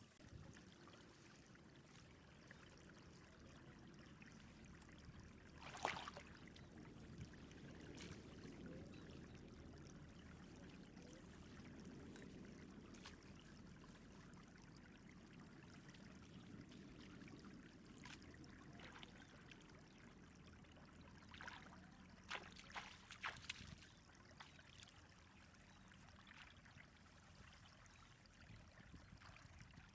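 Faint water trickling and sloshing, with a few short splashes, one about six seconds in and a small cluster near the three-quarter mark.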